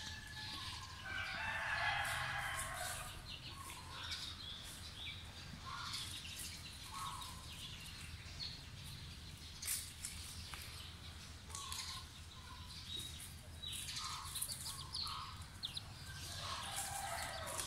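Chickens calling: a rooster crows about a second in and again near the end, with short clucks and chirps from the flock in between.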